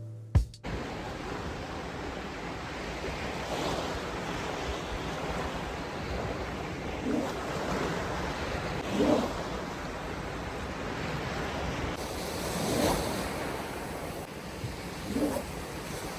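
Surf washing onto a beach in steady noise, with waves swelling louder as they break several times, a few seconds apart, and wind blowing across it.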